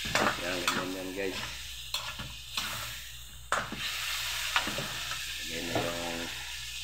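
Metal spatula stirring and scraping frying food in a stainless steel wok, with a steady sizzle underneath and several sharp scrapes and knocks of the spatula against the pan.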